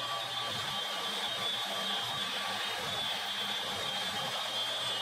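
MAHO MH400E CNC milling machine running steadily, spindle turning and flood coolant flowing while it drills holes for M6 threads: an even machine hum with a constant high whine.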